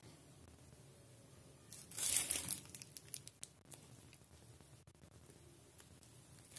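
A short crinkling rustle of small objects or packaging being handled about two seconds in, followed by a few faint light clicks.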